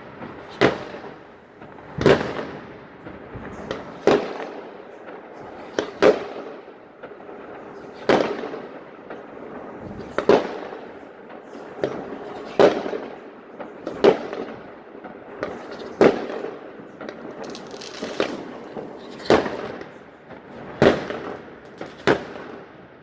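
Fireworks going off: loud sharp bangs about every two seconds, with smaller pops and crackling in between.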